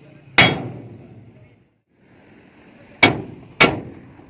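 Three hammer blows on steel, each with a short ringing clang: one about half a second in, then two in quick succession near the end.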